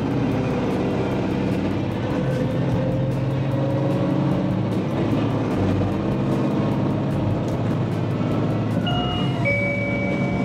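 Train running as it pulls away from a station, with background music over it.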